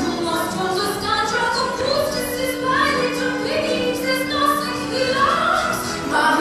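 A group of young voices singing a song together, choir-style, with one note held for a couple of seconds midway.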